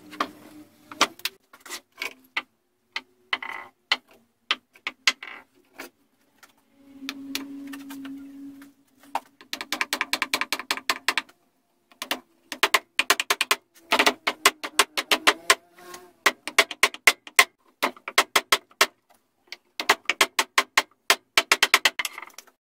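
Small hammer tapping steel railroad spikes down into holes in an old wooden beam: rapid runs of light, ringing metal-on-metal strikes with short pauses between them.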